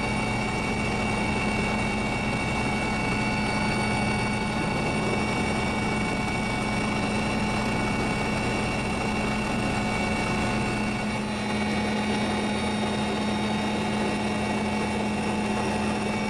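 Steady mechanical hum holding several constant pitches, with no change in level or pitch.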